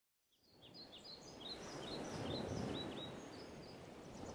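Birds chirping in a quick string of short chirps over a steady rushing background noise; the sound fades in from silence over the first second or so.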